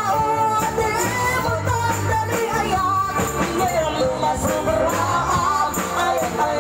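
Live band playing upbeat pop music, with singing over guitar, bass and a steady drum beat.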